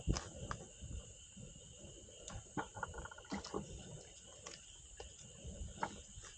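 Wood fire crackling with scattered sharp pops, over a steady high chirring of insects.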